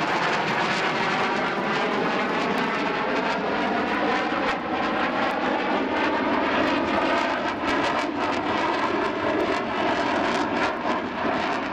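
A JASDF F-15J fighter's twin F100 turbofan jet engines running loud and steady in a fast pass, the jet noise wavering with a slowly shifting, phasing tone as the aircraft moves across the sky.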